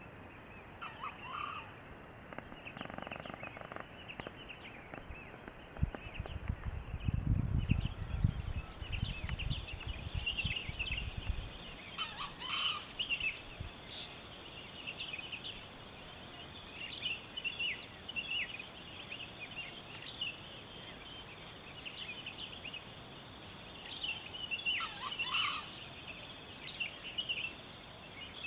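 Junglefowl rooster crowing three times, about twelve seconds apart, over a steady background of small birds and insects chirping. A low rumble of wind or handling on the microphone runs for a few seconds near the middle.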